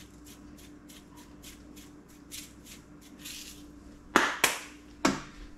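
Shaker of red pepper being shaken over a burger patty: a light rattle about three times a second. Near the end come two or three sharp, loud knocks.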